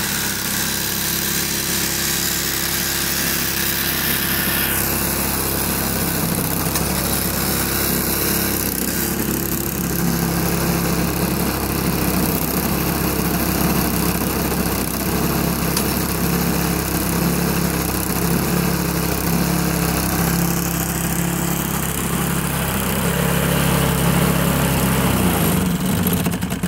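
McLane reel mower's Briggs & Stratton 3.5 hp single-cylinder four-stroke engine running steadily, its note sagging slightly in the last second.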